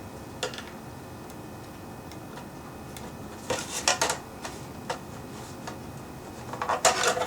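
Small plastic clicks and taps from a quartz clock movement's parts being handled and pried at: scattered single clicks, a short cluster about three and a half seconds in, and a louder cluster near the end.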